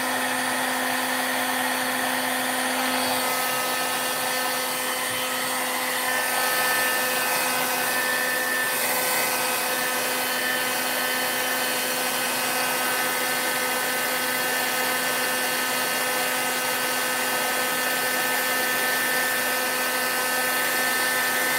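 Handheld craft heat gun running steadily, its fan blowing hot air with a steady whine over a rush of air, drying wet watercolor paint on paper.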